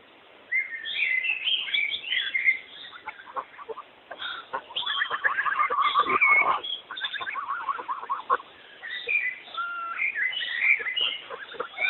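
A flock of white domestic geese calling: a jumble of short honks and chatter that is densest and loudest about five to seven seconds in.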